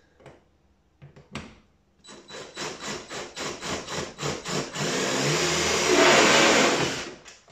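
Power drill driving a temporary screw through a carbon-fibre wing panel into the car body. A few clicks, then a couple of seconds of short pulsed runs, about five a second, that merge into a steady, louder whir and stop just before the end.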